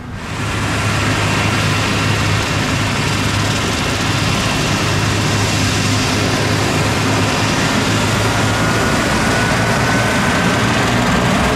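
Air ambulance helicopter running on the ground: a steady turbine whine over a low rotor hum, with one tone slowly rising in pitch over the second half.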